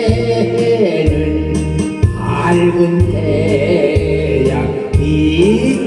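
Trot song accompaniment in its closing bars, with a bass line stepping through even notes about once a second under a melodic line.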